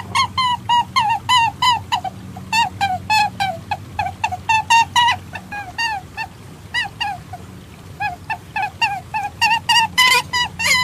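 Short, squeaky animal calls, each a quick downward slur, repeated about four times a second in runs broken by brief pauses, over a low steady hum. This is a hunter's lure recording played to draw perentie monitor lizards.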